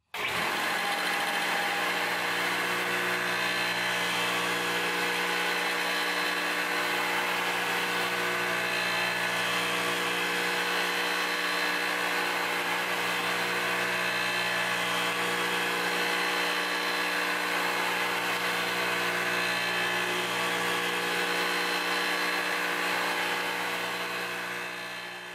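1.5-horsepower enclosed electric motor of a contractor table saw running steadily at speed with a steady hum, spinning a newly fitted 3-inch pulley during a balancing run; the pulley is out of balance. The sound starts abruptly and fades away near the end.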